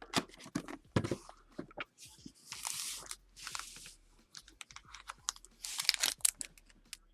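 Trading card packs being handled: foil wrappers crinkling and rustling, with a run of sharp clicks and taps. The longest crinkling comes between about two and a half and four seconds in.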